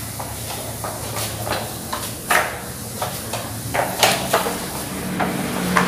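Irregular knocks and scuffs of a mop working over stair steps, over a faint steady low hum.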